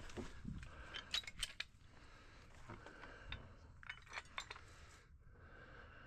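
A few light metal clicks and clinks from handling tools or pipe fittings, in two short clusters: about a second in and again around four seconds in.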